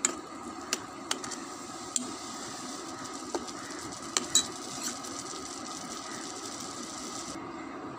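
Onion and tomato masala sizzling as it is sautéed in a stainless steel kadai, stirred with a steel spoon that clicks and scrapes against the pan a few times.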